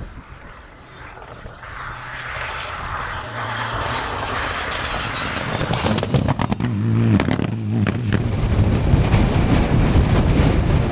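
Rally car engine approaching at speed and growing steadily louder, with a cluster of sharp cracks about six to seven seconds in.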